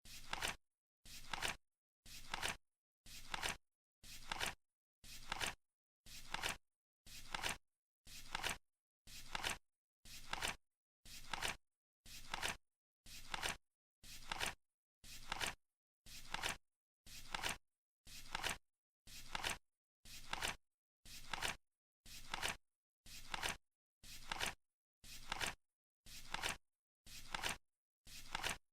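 Flip-clock timer sound effect: a short flipping rustle once every second, each one building up and stopping sharply, counting off the seconds.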